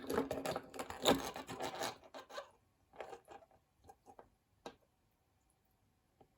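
Pocket knives being handled: rubbing and scraping for a couple of seconds, then a few light clicks and taps, then quiet.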